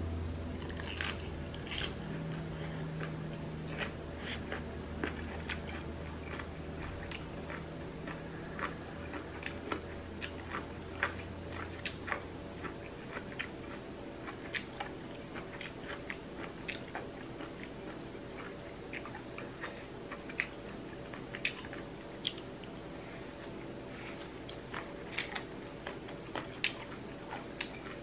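A person eating seafood papaya salad at close range: chewing and biting, with frequent small crunching clicks.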